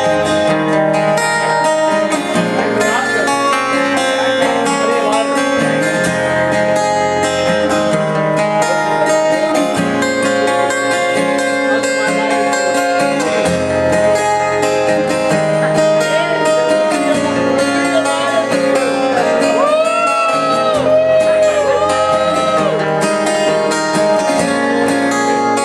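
Live band music played without singing: strummed acoustic guitar over a steady, stepping bass line.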